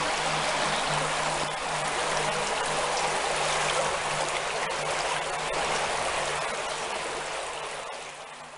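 Floodwater rushing steadily across an underground car park floor like a torrent, with a steady low hum underneath; it fades out at the very end.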